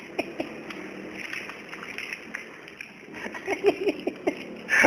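Hill myna giving a quick run of short, chuckling laugh-like notes about three seconds in, about eight notes in a second, mimicking human laughter, with a brighter call near the end.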